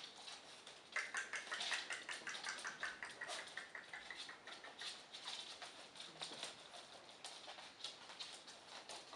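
Shar-Pei puppies' claws and paws pattering and clicking on a hard wooden floor as they trot and scamper about, with a quick, dense run of high clicks and faint squeaks between about one and three seconds in.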